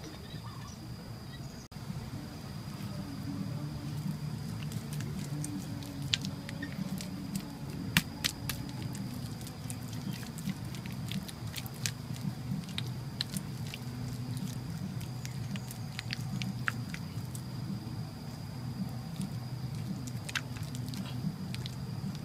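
Bare hands patting and smoothing wet mud around the rim of a buried clay jar, giving short wet slaps and squelches at irregular intervals. A steady faint high whine and a low hum run underneath.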